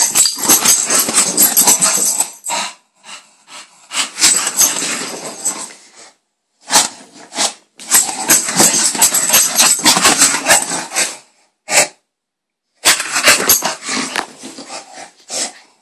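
Bulldog thrashing and rooting about in a blanket: rustling and scuffling of fabric mixed with the dog's growls. It comes in busy bursts of one to three seconds, broken by short pauses, the longest about twelve seconds in.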